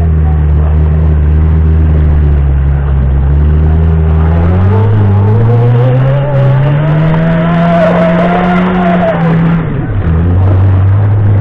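Small hatchback's engine held at high revs, its front wheel spinning and smoking on gravel as the car tries to climb out of a ditch. The revs climb steadily through the middle and fall back shortly before the end.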